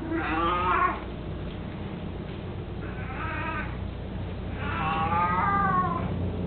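An 18-year-old house cat meowing three times, long drawn-out calls about two seconds apart, the last one sliding down in pitch at its end.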